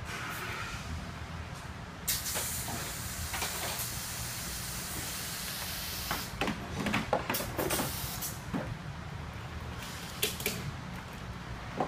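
Car-service workshop sounds over a steady low hum: a hiss starts about two seconds in and lasts some four seconds, then a run of clicks and clatters of tools and parts being handled, with a couple more clicks near the end.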